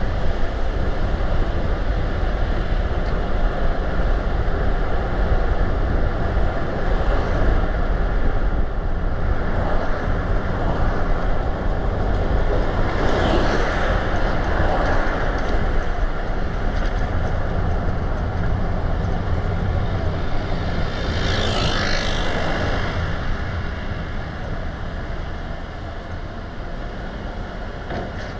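Steady road and wind noise from a car driving along a town road, with two louder rushing swells, about halfway through and again a few seconds later, as other traffic passes. The noise eases off a little in the last few seconds.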